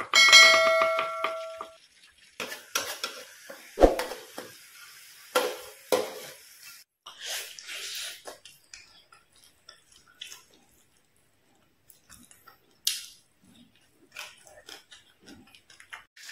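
A short ringing chime at the very start, then scattered clicks, clinks and knocks of dishes and handling food while eating, with a heavier thump about four seconds in.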